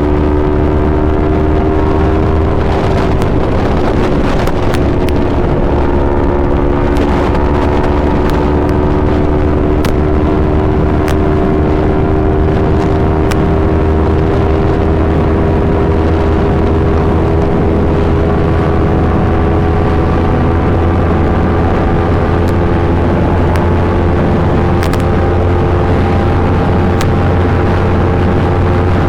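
Yamaha R3's parallel-twin engine running through an Akrapovic full exhaust system. Its note is steady and loud, its pitch slowly rising over the stretch, with a change in tone about three seconds in.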